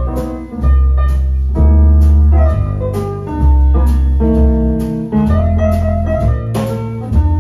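Music from a vinyl record playing on the turntable: piano-like notes over a deep, sustained bass line, with sharp percussive hits.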